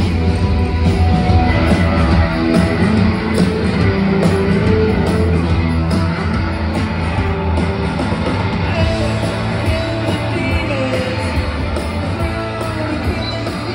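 Live rock band playing loudly in a small club: electric guitars and bass over a steady drum beat, with a singer's voice.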